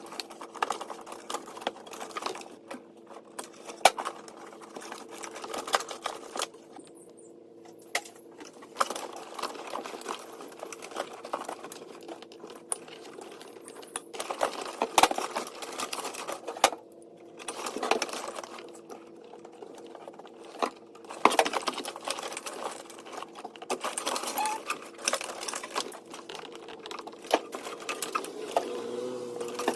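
Rapid, irregular clicking and rattling from hands-on work on a car's wiring, over a steady low hum.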